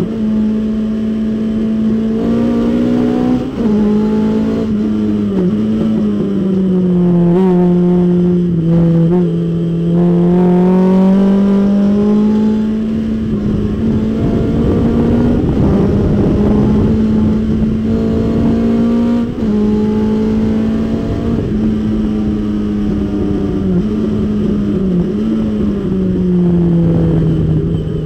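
Datsun 510 race car's engine heard from inside the cockpit, pulling hard at racing speed. Its pitch rises and falls several times with the throttle and drops near the end as the car slows.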